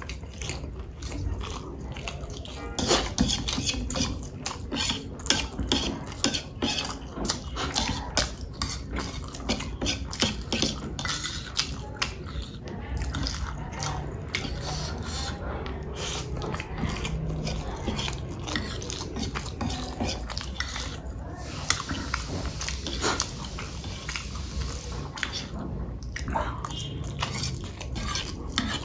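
Close-miked chewing and eating of spicy instant noodles and a chicken leg, a steady run of small wet clicks and smacks.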